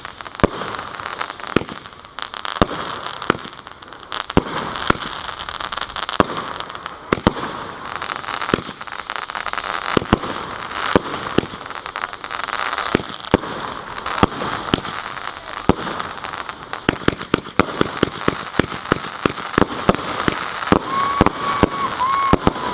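Blonde Joke consumer firework going off: a long run of sharp reports over continuous crackling. The shots come faster and closer together in the last several seconds as it finishes.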